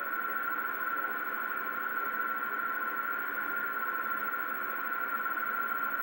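A steady high-pitched whine over a hiss, from an old camcorder recording played back through a television speaker.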